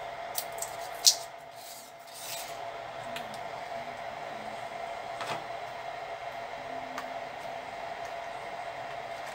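Small clicks and light scraping of a CR2032 coin-cell battery and small plastic parts being handled and fitted by hand, the sharpest click about a second in and a few fainter ones later. A steady faint high hum runs underneath.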